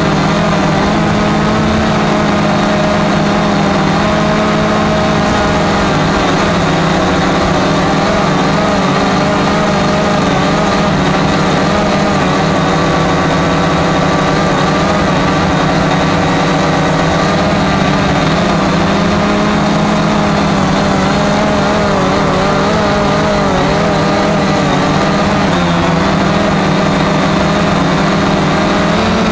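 Cheerson CX-20 quadcopter drone's four electric motors and propellers whirring in flight: a loud, continuous buzz whose pitch wavers slightly as the motors adjust.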